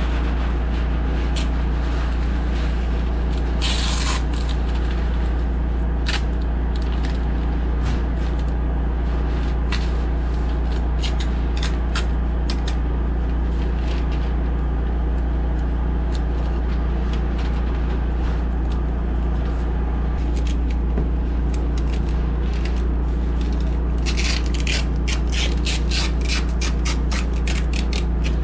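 A steady low machine drone with scattered short clicks and scraping over it, and a quick run of clicks near the end.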